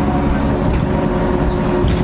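Interior sound of a 2000 Nova Bus LFS city bus under way: a steady engine and driveline rumble with a faint whine, and a few small squeaks and rattles from the body.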